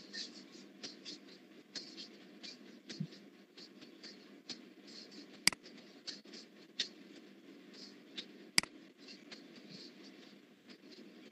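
Two sharp computer-mouse clicks about three seconds apart, the first about halfway through. Between them run faint irregular scratchy ticks over a low steady hum.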